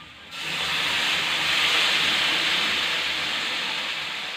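Water poured into a hot kadai of frying mixed vegetables: a sudden loud sizzling hiss that starts about a third of a second in and slowly dies down.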